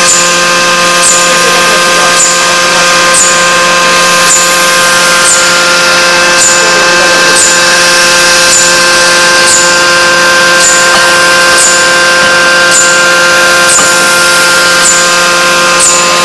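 Forging machine running: a steady hum of several held tones over a hiss, with a short high chirp repeating about once a second.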